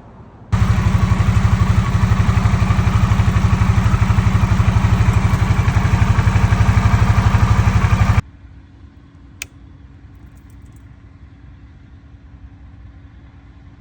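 Harley-Davidson Sportster S's Revolution Max 1250T V-twin idling steadily with an even, rapid exhaust beat, starting abruptly about half a second in and cutting off suddenly after about eight seconds. Then only a faint low hum with a single click.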